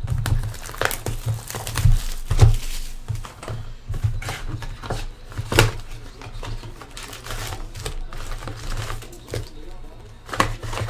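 Plastic wrapping on a trading-card hobby box and its packs being torn open and crinkled, irregular crackling rustles and sharp snaps of handling.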